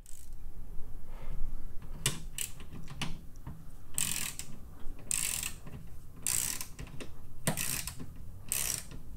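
Hand ratchet with a 7 mm socket unscrewing a small bolt: a few separate clicks at first, then bursts of rapid pawl clicking on each back-swing, about once a second.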